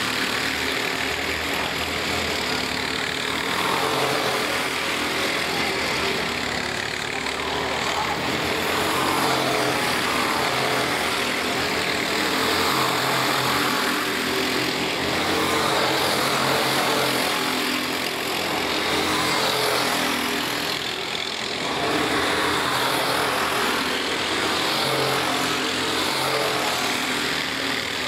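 A pack of four-stroke racing karts running at race speed, several engines at once, their pitch rising and falling over and over as the drivers brake for corners and accelerate out of them.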